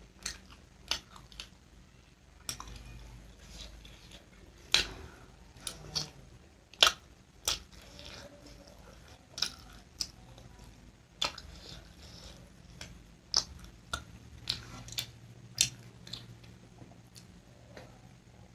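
Close-up eating sounds: chewing and biting, with frequent short, sharp mouth clicks and smacks at irregular intervals.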